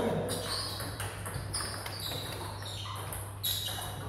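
Table tennis ball being hit and bouncing in play: a string of sharp clicks, about two a second, over a steady low hum.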